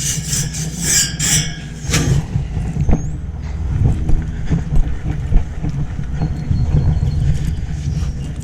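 A brush scrubbing an air-conditioner condenser's cover panel, a few strokes in the first two seconds, over a steady low rumble.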